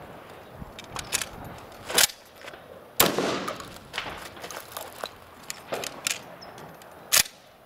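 Shotgun fired three times: two shots about a second apart, then a third about four seconds later, with lighter clicks and knocks between them.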